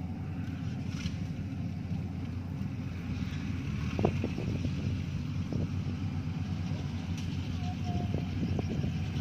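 Yanmar AW82V combine harvester's diesel engine running steadily as it cuts rice, with a few sharp knocks from about four seconds in.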